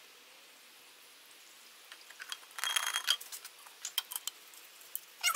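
Faint handling sounds of a tin of engine flush being emptied into an engine's oil filler and lifted away. It is quiet at first, then there is a short clinking rattle with a thin ring about two and a half seconds in, followed by a few light clicks.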